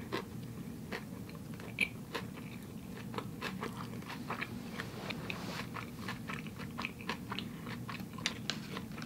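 Close-up chewing of a vegan sushi roll: many small, quick mouth clicks and crunches over a soft steady bed, coming thicker after a fresh bite about three to four seconds in.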